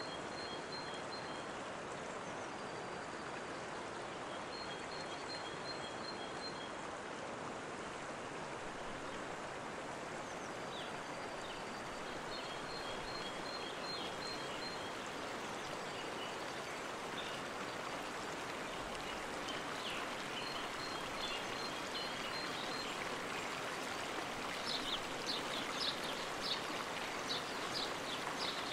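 Running water flowing steadily, with birdsong over it: a quick, evenly pulsed high trill repeating every few seconds, and a run of short sharp chirps near the end.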